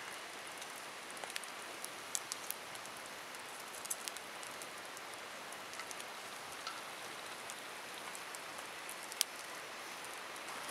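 Wood fire burning: a steady hiss with scattered sharp crackles and pops, one louder pop about nine seconds in.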